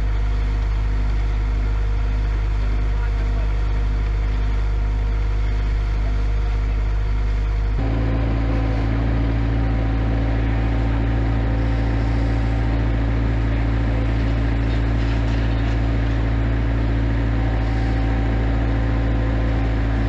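Bobcat 753 skid steer's diesel engine running steadily. About eight seconds in it speeds up to a higher pitch and holds there as the forks lift a load of logs.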